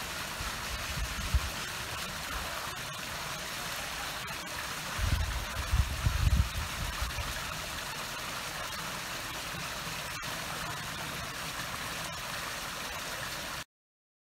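Small artificial waterfall spilling steadily over a concrete ledge into a pool, an even splashing hiss. A few brief low rumbles come about five to seven seconds in, and the sound cuts off abruptly just before the end.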